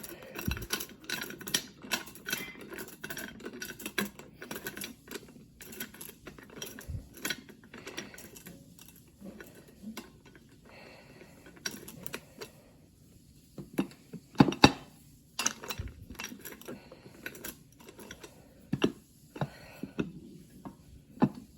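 Quarters clinking and rattling as they are handled, a run of irregular light metallic clicks with a few louder knocks about two-thirds of the way through and near the end.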